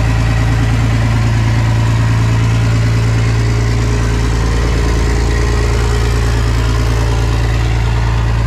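Diesel pickup truck engine idling steadily just after a cold start with the engine cold from sitting outside overnight. It runs loud and even, with a fast, regular clatter under the low hum.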